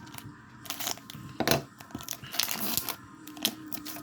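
Foil wrapper of a Pokémon booster pack crinkling and tearing open in a few short rips, with cards being handled.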